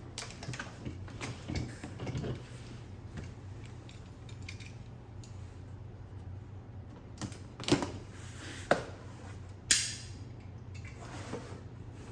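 Packaging being handled and opened: scattered small clicks and rustles, then three sharp knocks about a second apart, the last the loudest.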